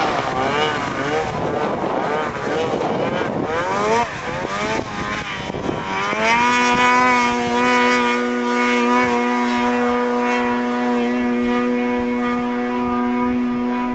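Snowmobile engine revving unevenly, its pitch rising and falling, then climbing about six seconds in and holding a steady high pitch as it runs at constant speed.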